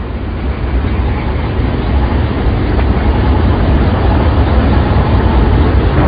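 Steady rumbling noise with a hiss, swelling a little over the first two seconds.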